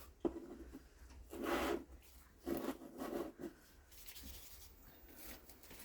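Small plastic pots of acrylic nail powder being handled, rubbing and scraping in three short bouts.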